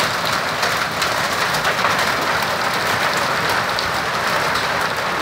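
Hailstorm: hailstones and rain pelting down hard, a dense, steady clatter of countless small impacts.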